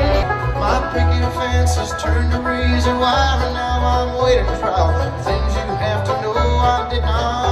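Bluegrass band playing live through a concert PA: fast banjo and guitar picking over a steady upright-bass beat, heard from the audience.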